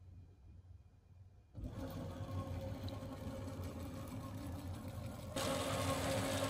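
Stepper motors of an upgraded Onefinity CNC router jogging the gantry in continuous mode at 50% feed. The steady machine sound, with a few steady tones in it, starts suddenly about one and a half seconds in and gets louder about five seconds in.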